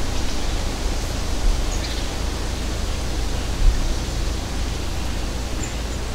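Steady hiss of background noise with a low hum under it, with no distinct event standing out.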